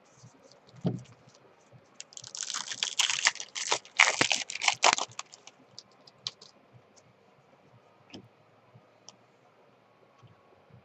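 Trading card pack wrapper crinkling and tearing in a dense crackle for about three seconds, then a few faint clicks of cards being handled.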